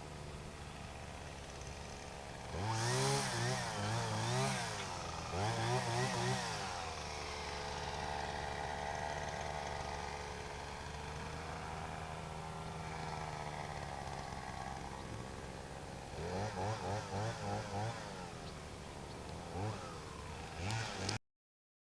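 Small engine running steadily, its pitch wavering up and down in bursts as the revs change. The sound cuts off abruptly near the end.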